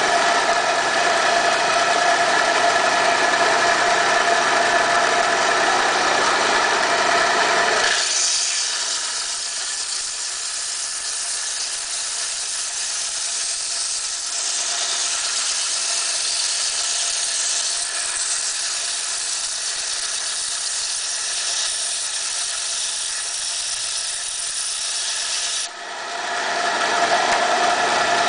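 Diamond band saw running with a steady motor hum and whine. About 8 s in it changes to a high grinding hiss as the blade cuts through coral rock. Near the end the hiss stops abruptly and the plain running hum returns.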